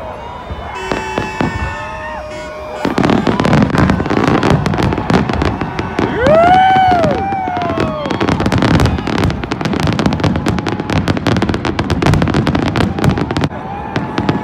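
A New Year's fireworks display going off: from about three seconds in, a dense, rapid run of bangs and crackles that keeps up throughout. A long, high tone rises and falls over it about six seconds in.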